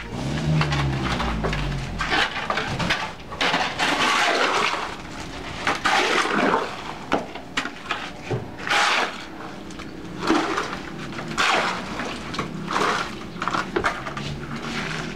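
A steel shovel scraping over a concrete floor and scooping wet cement mix into a bucket, in repeated irregular strokes with wet slapping.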